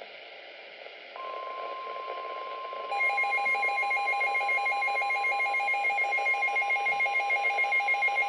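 A steady weather-radio warning tone near 1 kHz comes on about a second in, over a hiss of static. About two seconds later a fast, pulsing electronic beeper joins it: the TFT EAS decoder's alarm going off as it receives a severe thunderstorm warning.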